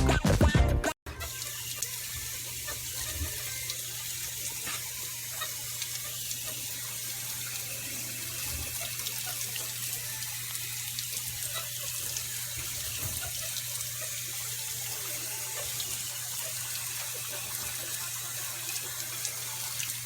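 Music for about the first second, cut off abruptly, then a steady hiss of running water, like a tap running, over a low steady hum.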